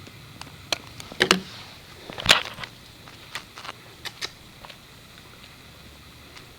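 A string of irregular sharp clicks and knocks, the loudest two about a second and two seconds in, over a steady faint low hum.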